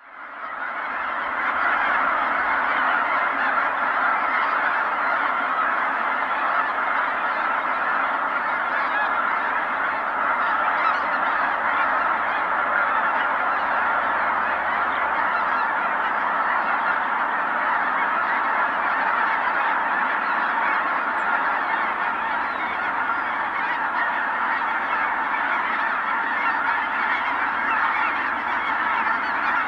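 A large flock of geese, Ross's geese among them, calling all at once in a continuous mass of overlapping honks and cackles, fading in over the first second and then holding steady.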